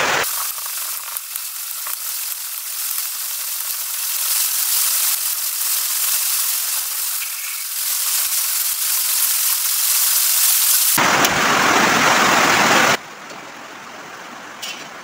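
Stone pestle grinding spices in a stone mortar: a steady gritty scraping. About eleven seconds in it stops abruptly and a different, fuller noise takes over, then a much quieter stretch follows.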